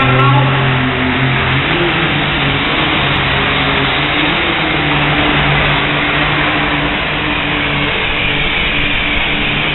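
Pulling tractor's engine running at full throttle during a pull, a loud, steady drone that holds its pitch.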